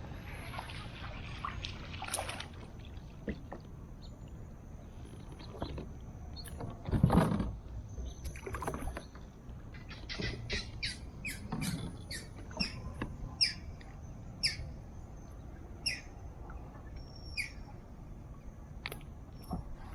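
A bird chirping outdoors, short sharp high calls repeated at irregular intervals through the second half, over a steady background hiss. About seven seconds in there is a single louder thump or splash.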